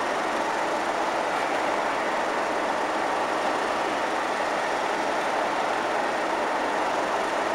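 Class 37 diesel locomotive's English Electric V12 engine idling, a steady, even running sound with no change in pace.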